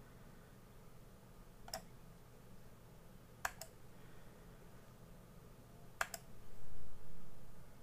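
Clicks at a computer: a single click, then two quick pairs of clicks, over a steady low hum. A louder low bump comes near the end.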